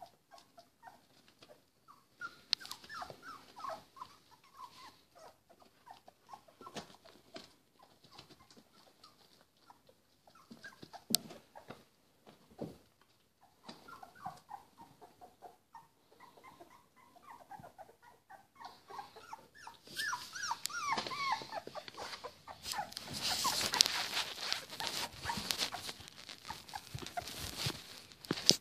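Three-week-old puppies whimpering and squeaking in many short, wavering calls, thickening into a busy chorus about two-thirds of the way in. Over the last several seconds loud rustling and scraping close to the microphone joins them.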